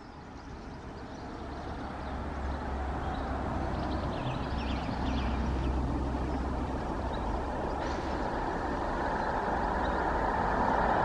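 Class 47 diesel-electric locomotive, its Sulzer twelve-cylinder engine running under power, hauling a train of coaches as it approaches, growing steadily louder.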